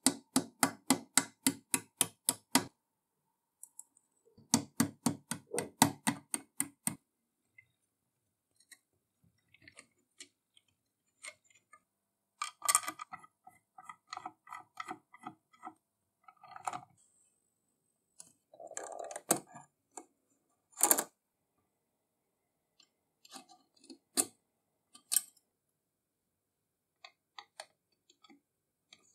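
A small hammer tapping on the steel frame of an antique kitchen scale, about four quick taps a second, in two runs of roughly ten taps with a short pause between. After that come scattered clicks and clinks of small metal parts being fitted by hand.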